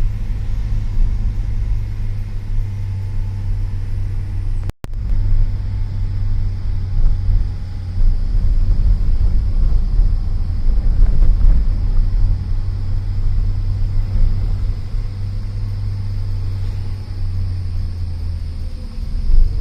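Steady low rumble of a vehicle driving, which cuts out briefly about five seconds in.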